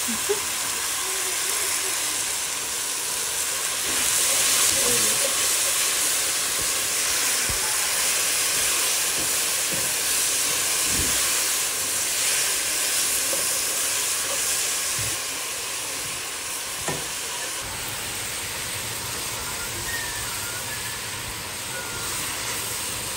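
Sliced onions and cabbage sizzling hard in a hot oiled pan as they char for a wok-like flavour, stirred with metal tongs, with a few light knocks of the tongs against the pan.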